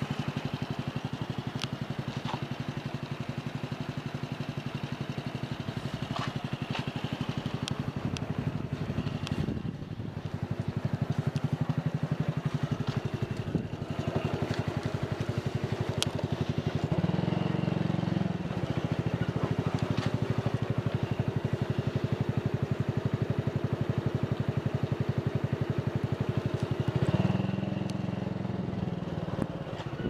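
Motorcycle engine running at low revs as the bike rolls slowly, with a fast, even beat of firing pulses. It picks up briefly twice, about seventeen seconds in and again near twenty-seven seconds.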